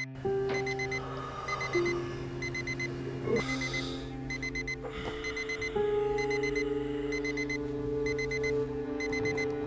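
Digital alarm clock beeping in quick repeated sets of four, over background music of long held low notes.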